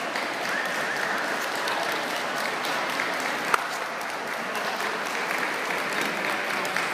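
Audience applauding, a steady patter of many hands clapping, with one sharp click about three and a half seconds in.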